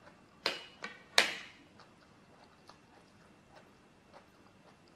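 Metal fork clinking against a plate three times in quick succession as it is set down, the third clink the loudest and ringing briefly.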